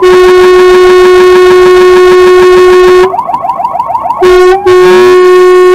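Fire engine's electronic siren yelping rapidly under long, very loud air-horn blasts. The horn breaks off about three seconds in, then sounds twice more near the end.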